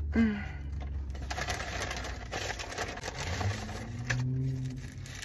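Paper sandwich wrapper and paper bag crinkling and rustling as a fast-food chicken sandwich is unwrapped, with a low hum of a voice in the second half.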